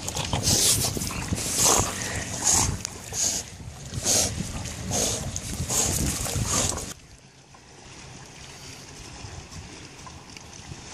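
A swimming dog's paws splashing the water in a steady rhythm, about two splashes a second. About seven seconds in this stops and gives way to a quieter steady hiss of wind and lapping water.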